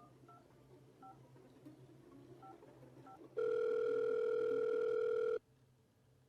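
Soft telephone keypad beeps as a number is dialled, then a loud two-second telephone ringing tone starting about three and a half seconds in: the call going through.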